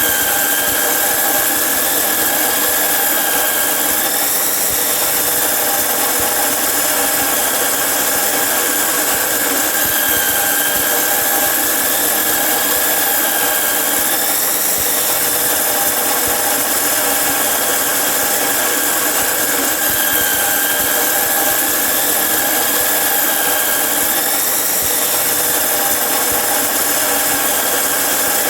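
Angle grinder cutting iron: a steady high whine over a loud hiss, with the pitch dipping briefly about every ten seconds.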